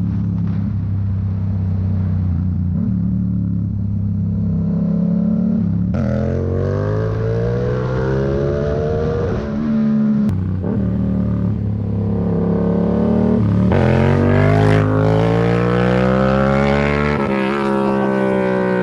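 2017 Yamaha MT-07's parallel-twin engine through a Black Widow full-system exhaust with no baffle, super loud. It holds a steady note at first, then accelerates with the revs climbing and dropping at gear changes about 10, 14 and 17 seconds in.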